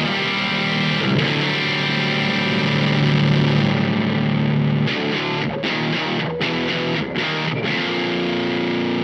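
Electric guitar played through a Weird Noise Effects fuzz pedal, giving a distorted tone. Held chords ring out, then about five seconds in come a few short, choppy chords, and near the end another chord is held.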